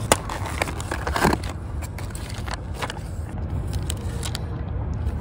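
Clear plastic film on a bento box crinkling and crackling as it is pulled off by hand, a series of crackles over a steady low rumble.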